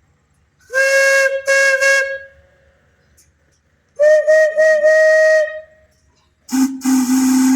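Steam whistles blown in short blasts, with a hiss of steam around each toot. There are three different whistles in turn: one gives three toots about a second in, a slightly higher-pitched one gives several quick toots about four seconds in, and a much deeper one blasts repeatedly near the end.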